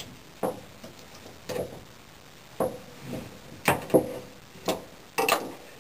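Handling of a bow press's metal clamp and bolt parts on a compound bow's limb: about seven separate hard clicks and knocks, spaced roughly half a second to a second apart.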